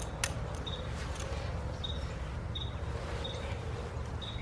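Outdoor background with a steady low rumble, a bird's short high chirps repeating about once a second, and two small clicks at the start.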